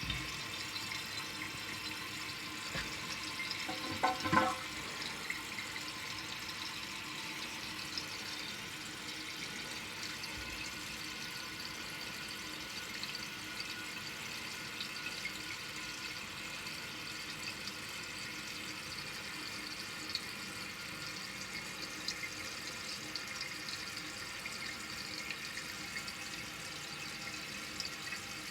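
Water running steadily into a 1981 American Standard Cadet toilet, as a steady hiss, with a brief louder noise about four seconds in.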